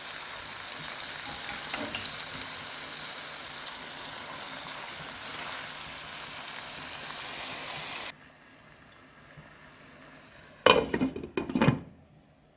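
Beef liver frying in a pot with onion, tomato and peppers: a steady sizzle that cuts off suddenly about eight seconds in. Near the end come two loud, short clatters.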